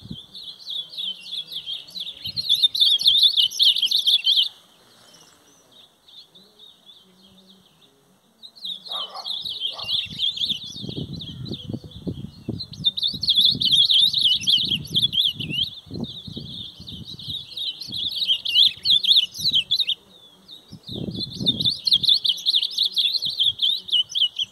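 Caged songbirds singing a long, rapid, twittering song in bouts, with a pause of a few seconds near the start. Low rumbling noises come in under the song from about ten seconds in.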